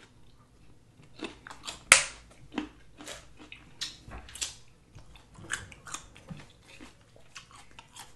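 Close-miked eating sounds: crunching and chewing a ranch-dipped carrot stick, with wet mouth smacks and finger licking. Many short, sharp clicks and crunches come irregularly, the loudest about two seconds in.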